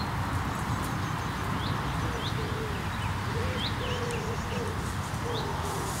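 Countryside ambience: small birds chirping in short high notes over a steady hiss, with a low repeated bird call through the middle.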